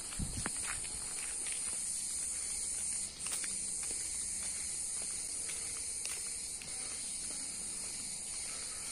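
A steady, high-pitched chorus of insects chirring, dipping briefly about three seconds in, with faint footsteps of someone walking.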